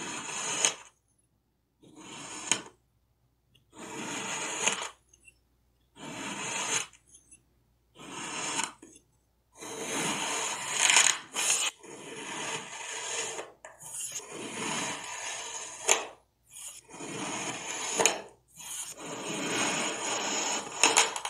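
Kinetic sand being dug into with a metal fork and sliced with knives: soft gritty crunches and scrapes as the packed sand cuts and crumbles. Bursts of about a second come with short pauses between them, then run almost without a break from about halfway on.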